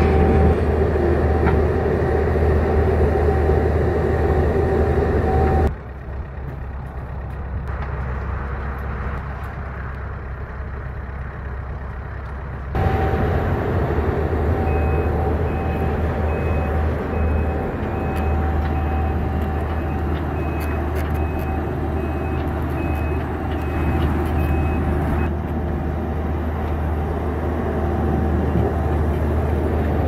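Skid steer engine running steadily with a steady whine over it. The sound drops quieter for a stretch in the first half, then a back-up alarm beeps over and over, evenly spaced, through the middle of the second half.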